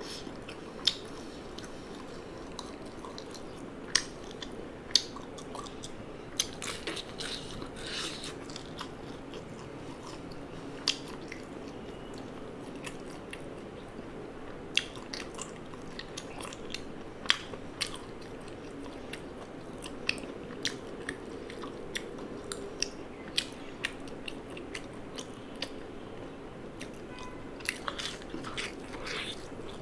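Close-up eating sounds: crisp bites and crunching with chewing in between. The sharp crunches come irregularly over a steady low background hum.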